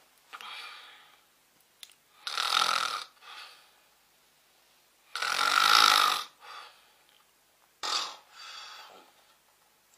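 A man snoring heavily: a loud, rasping snore roughly every two and a half seconds, each followed by a shorter, softer one.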